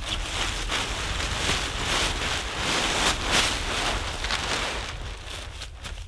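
Crinkling and rustling of a clear plastic groundsheet and tent fabric as a Hilleberg tent is pulled from its bag and spread out, over a low rumble of wind on the microphone. The rustling eases off near the end.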